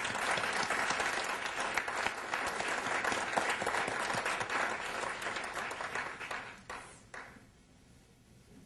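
Audience applauding, steady for about six seconds, then thinning to a few last claps and dying away.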